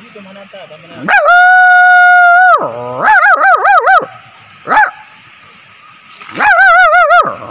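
A man imitating a dog with his voice: a long, steady high whine about a second in, then a run of wavering, yelping whimpers, a short yip, and more wavering whimpers near the end.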